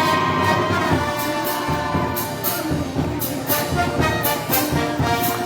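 Brass band playing festival music, with cymbal strokes marking a steady beat.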